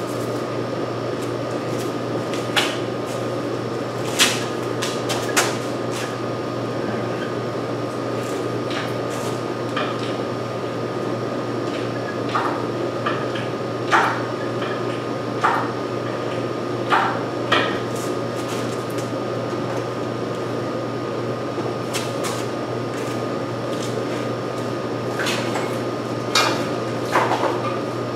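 Scattered, irregular metal clanks and knocks, about a dozen in all, from hands-on work on an engine hanging from a hoist chain, over a steady background hum.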